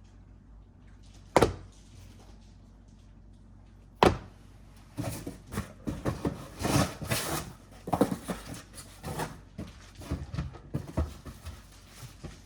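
Plastic golf discs set down with two sharp thuds, about a second and a half in and again about four seconds in. From about five seconds in comes a steady run of clattering and rustling as discs are handled and shuffled.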